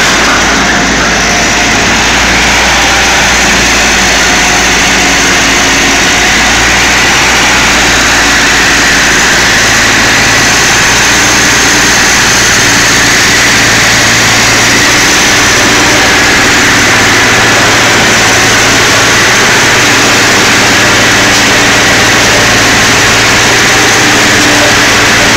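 Ford 7740 diesel tractor engine running steadily together with a front-loader-mounted Elho Rotor Cutter 1500 bale shredder, its rotor spinning for shredding silage bales. A loud, unbroken mechanical din with an engine hum underneath.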